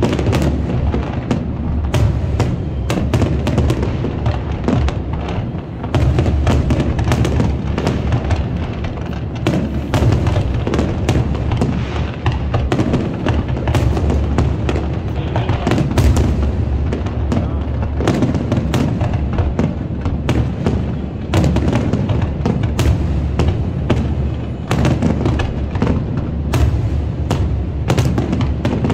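Fireworks display: aerial shells bursting in quick succession, a dense run of booms and crackles over a steady low rumble.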